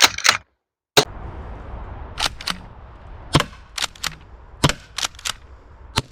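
Umarex HDX 68 pump-action shotgun firing rubber balls in quick succession at a car wing mirror: a rapid run of sharp cracks and clacks, about two a second, from the shots, the hits and the pump. Behind them a steady low rumble starts about a second in.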